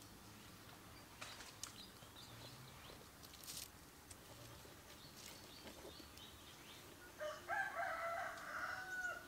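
A rooster crows once, a drawn-out call of about two seconds ending on a falling note, near the end. Faint ticks and chirps come before it.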